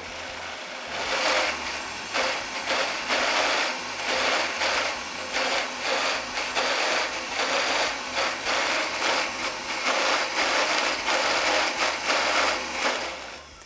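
Countertop blender running at high speed, churning a thick, creamy spread with no added water and an uneven, pulsing sound. It starts abruptly and winds down near the end.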